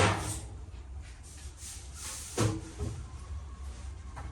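Two sharp knocks or clunks, one at the start and another about two and a half seconds in, over a steady low hum.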